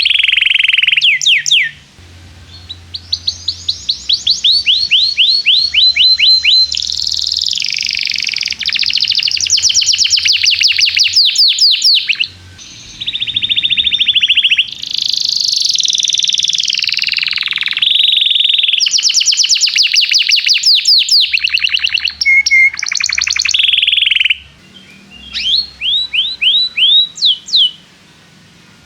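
Domestic canary singing loud, fast trills: long runs of rapidly repeated sweeping notes, strung into phrases with short breaks between them.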